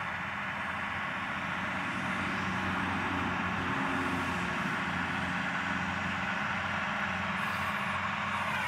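Versatile 550 articulated tractor's Cummins QSX15 diesel running steadily under load while pulling a Väderstad TopDown cultivator through stubble, growing slightly louder as the tractor approaches.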